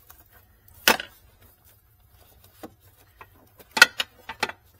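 Sharp knocks and clunks of a car battery being shifted by hand into its tray: one loud knock about a second in, then a quick cluster of knocks near the end.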